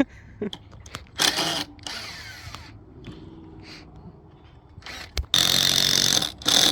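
Power drill driving screws into a wooden board: a short run about a second in, then a longer, louder run with a steady high whine near the end.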